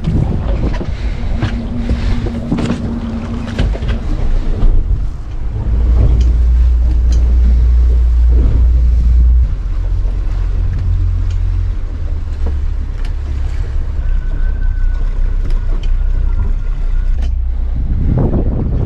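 Boat engine running under way, a low drone that gets much louder for a few seconds around the middle, heard from inside the cabin of a 220 San Juan. In the first few seconds, out on deck at the bow, wind buffets the microphone and water rushes past the hull. Scattered light knocks are heard throughout.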